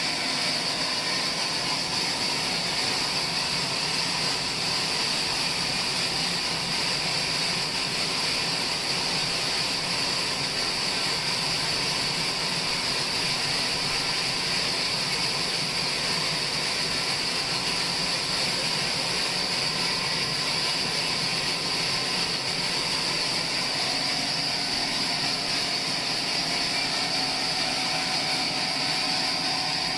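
Sawmill saw running steadily, a constant high whine over an even mechanical noise that does not change.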